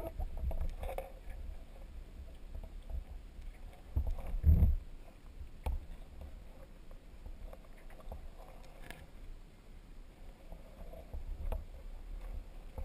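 Muffled low rumble and irregular knocks from an underwater camera rig being moved through the water, with the loudest thump about four and a half seconds in.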